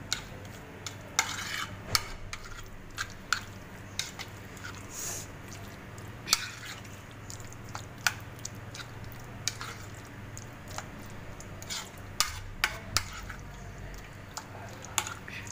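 Metal utensil stirring chicken pieces through a thick yogurt-and-cream marinade in a dish, with irregular clinks and taps of metal against the dish and soft wet scraping between them.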